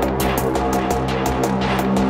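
Electronic dark hip hop beat: rapid, evenly spaced ticks, about seven a second, over sustained low synth and bass notes.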